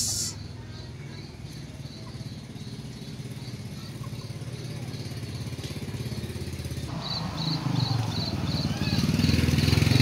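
A small engine running steadily, with a low, evenly pulsing rumble. Over it comes a series of short, high chirps that get louder and quicker about seven seconds in.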